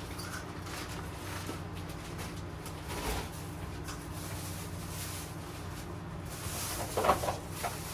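Steady low hum with faint background noise, with a brief faint voice about seven seconds in.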